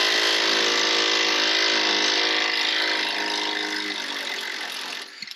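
Impact wrench hammering steadily on the lower control arm bolt, breaking it loose. It eases off after about three seconds and stops shortly before the end.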